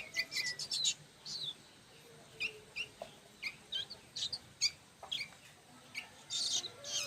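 Young sooty-headed bulbul (kutilang) chirping: a quick run of short high calls in the first second, then single chirps scattered every half second or so.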